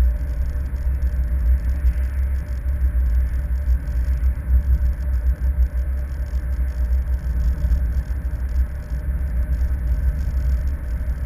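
Low, steady rumble of a moving car heard from inside the cabin: road and engine noise while driving.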